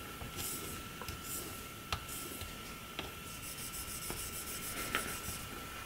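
A grafting knife's steel blade rasping softly in a series of light back-and-forth strokes on a fine-grit whetstone, with a few small clicks. These are the finishing strokes that clear the last of the wire edge.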